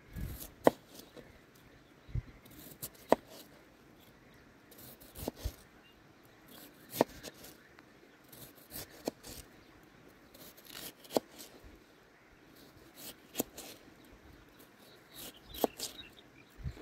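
Sharp knocks and taps at uneven intervals, a second or two apart, the loudest with a brief ring.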